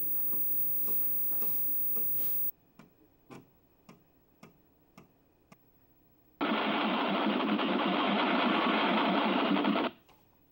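Amiga 1000's internal 3.5-inch floppy drive clicking about twice a second, then a loud, steady buzzing grind lasting about three and a half seconds as it reads a game disk. A faint steady hum fills the first couple of seconds before a sudden cut.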